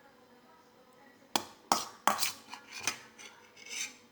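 Close-up eating of agar-agar jelly: a quick run of three sharp clicks a little past a second in, then several shorter mouth and eating sounds over the next two seconds.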